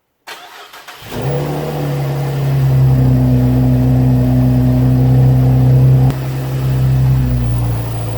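2015 Chevrolet Camaro engine starting: a short crank about a quarter second in, catching about a second in, then running at a steady fast idle that drops twice near the end as it settles.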